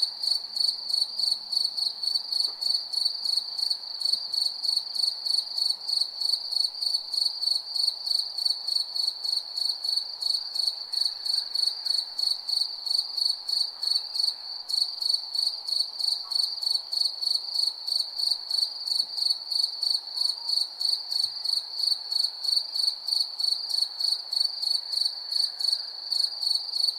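A cricket chirping: a high, even chirp repeated several times a second in a steady rhythm, with one brief break about halfway through, over a faint background hiss.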